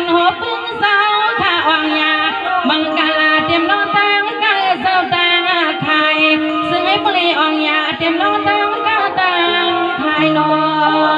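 A woman singing a Shan song into a microphone, her voice gliding and ornamented over steady instrumental accompaniment.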